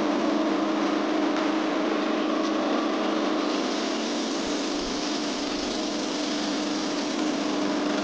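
Concrete mixer's engine running steadily, a continuous drone that holds one pitch throughout.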